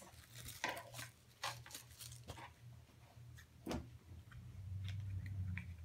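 A few light rustles and small knocks from hands fitting a craft mask onto a plush toy, spread about a second apart, over a low steady hum.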